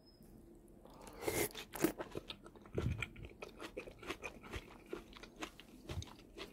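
A person chewing a mouthful of steamed napa cabbage roll stuffed with minced pork: an irregular series of chews, several a second, starting about a second in.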